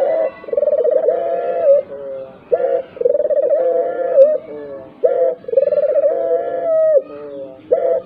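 Ringneck dove cooing in repeated phrases, about one every two and a half seconds. Each phrase is a short note followed by a long rolling coo and a lower closing note.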